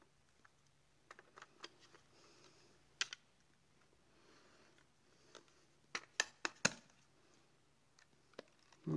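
Light clicks and snaps of a Mamiya RZ67 120 film back and its film insert being handled and fitted back together. There are a few light clicks, one sharper click about three seconds in, and a quick run of louder clicks around six seconds in.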